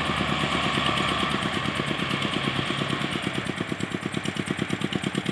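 Diesel engines of an MF 375 tractor and a Belarus 510 tractor pulling a heavily loaded sugarcane trolley, slowly fading, with an even rapid thudding of about ten beats a second that grows clearer toward the end.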